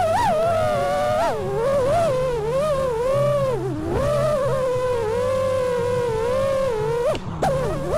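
FPV racing quadcopter's brushless motors and propellers (RCinPOWER Wasp Major 1860kv) whining, the pitch swooping up and down constantly as the throttle changes during freestyle flight. The whine drops out briefly about seven seconds in.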